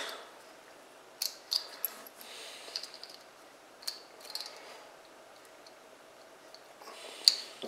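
Faint scattered clicks and scratching of a small screwdriver working at the locking tab of a crimped terminal in a plastic wiring plug, trying to release the wire, with a sharper click near the end.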